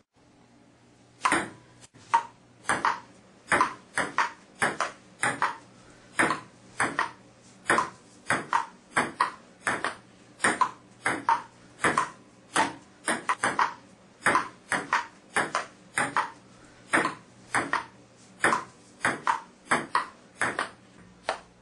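Table tennis rally: the plastic ball clicking off paddles and the table in a steady back-and-forth, about two hits a second, starting about a second in.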